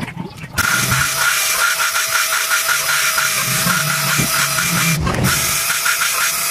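A loud, steady hiss of rushing air or gas starting about half a second in, with a faint steady whine and fast, even ticking under it; it cuts out briefly near five seconds, then resumes.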